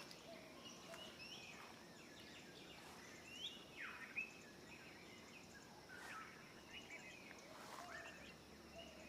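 Faint bird chirps and short whistled calls, scattered irregularly over a quiet outdoor background.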